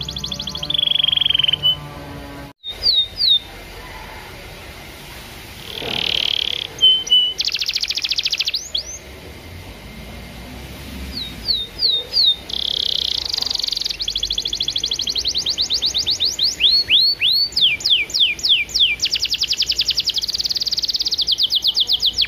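Domestic canary singing: phrases of rapid high trills, buzzy rolls and fast down-sweeping whistled notes, broken by short pauses, with the longest unbroken run in the second half.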